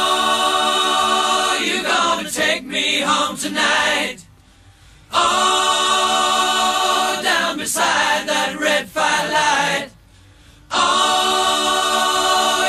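Choir-like singing without instruments: held, sustained chords in three phrases, broken by short pauses about four and ten seconds in, cutting off suddenly at the end.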